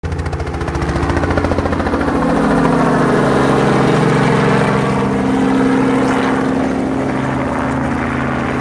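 Robinson R44 helicopter flying low overhead: a steady rapid rotor beat over the engine drone. It grows louder over the first few seconds, then eases slightly as it passes.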